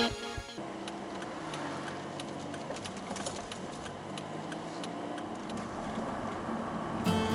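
Steady low hiss with scattered, irregular light clicks and ticks.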